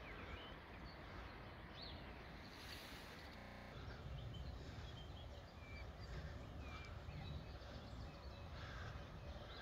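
Faint outdoor ambience: scattered small bird chirps over a low, steady rumble.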